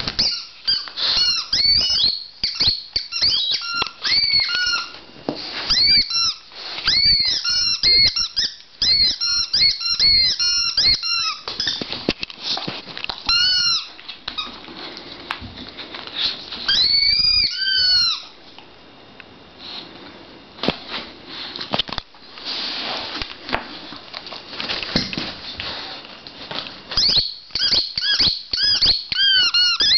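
A dog chewing a squeaky toy, setting off rapid runs of short, high, wavering squeaks in bursts. Soft knocks and rustles come between the bursts.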